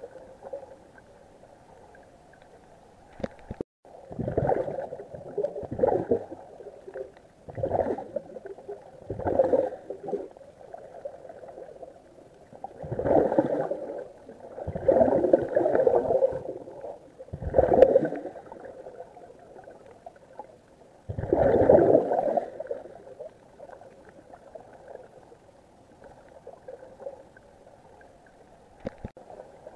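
Scuba breathing through a regulator heard underwater: about eight muffled bursts of gurgling exhaled bubbles, a few seconds apart, then quieter for the last several seconds.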